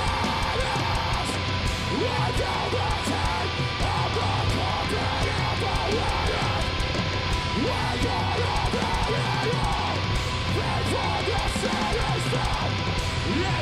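Deathcore band playing live: distorted electric guitars over a drum kit, in an instrumental passage without vocals.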